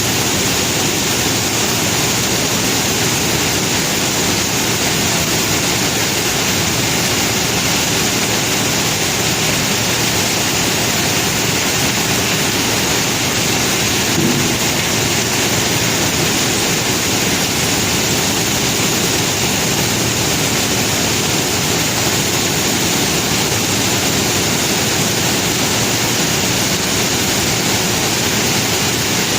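Conveyor belt carrying rock, giving a steady, dense rushing noise, with a short faint tone about halfway through.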